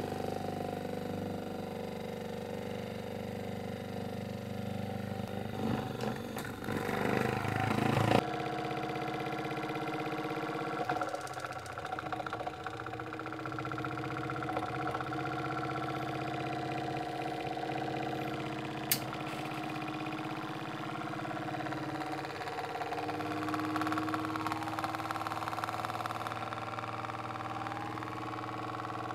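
Small electric motor spinning the LED rotor of a persistence-of-vision magnet pole display, a steady hum made of several tones. A louder rattling stretch ends in a sudden knock about eight seconds in, and a single sharp click comes about two-thirds of the way through.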